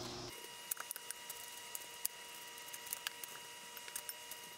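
Faint, scattered small clicks and crinkles of metal tongs turning raw chicken breasts on a foil-lined baking sheet, over a faint steady high whine.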